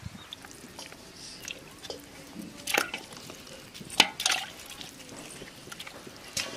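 Raw chicken pieces handled and dropped into a steel pot of water for washing: wet squishing and splashing, with a few sharp knocks, the loudest about four seconds in.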